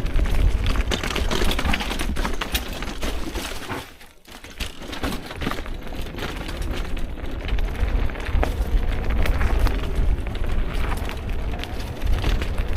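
Car on the move: a heavy low rumble of road noise with scattered crackles and knocks, briefly dropping away about four seconds in.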